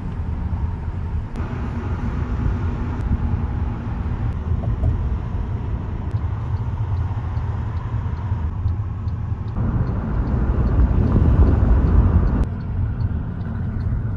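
Road and engine noise heard from inside a moving car's cabin: a steady low rumble that swells louder for a few seconds past the middle, then drops off suddenly.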